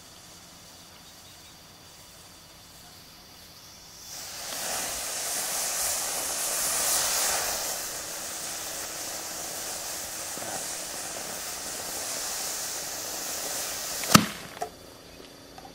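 Homemade potassium-nitrate sugar rocket motor igniting about four seconds in and burning with a loud hiss for about ten seconds while the rocket stays on the pad. Near the end a single sharp bang, the ejection charge firing to deploy the parachute, followed by a smaller pop.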